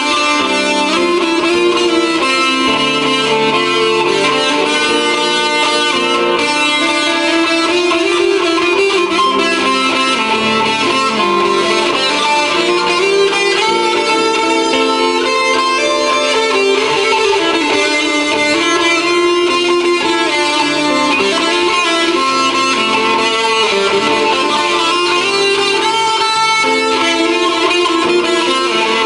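PRS S2 electric guitar with Bare Knuckle pickups, played through a PRS amplifier and Altec speaker with TC Electronic reverb and delay: an unbroken flow of sustained, overlapping melodic notes.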